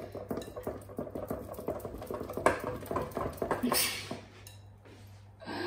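Wooden spoon stirring thick chocolate cake batter in a glass mixing bowl: a run of scrapes and squelches, with the spoon knocking on the glass, loudest about two and a half seconds in.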